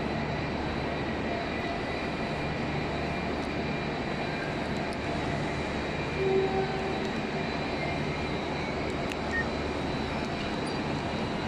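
Steady rumbling drone of a large railway station, the hum of trains and machinery under the station roof. A short tone sounds about six seconds in.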